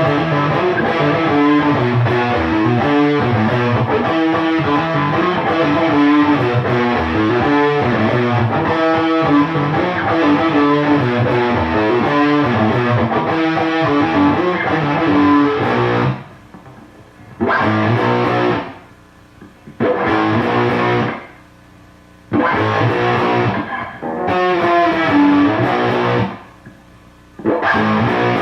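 Electric guitar, a Gibson Les Paul, played through an EarthQuaker Devices Black Ash fuzz pedal into an Orange valve amp: thick fuzzed riffing that runs unbroken for about sixteen seconds. It then turns stop-start, with four short bursts of fuzz chords, each cut off sharply into a lull.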